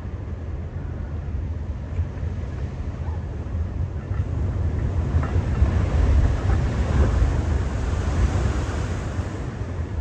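Ocean surf: a wave swells from about four seconds in, breaks with a peak of hissing wash around six to eight seconds, then eases off, over a low rumble of wind on the microphone.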